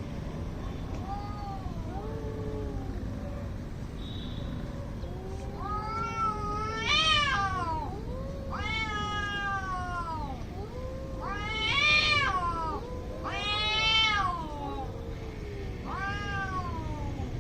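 Two domestic cats yowling at each other in an aggressive standoff: long, drawn-out calls that rise and then fall in pitch, a higher voice answered by a lower, moaning one. The loudest yowls come about seven, twelve and fourteen seconds in.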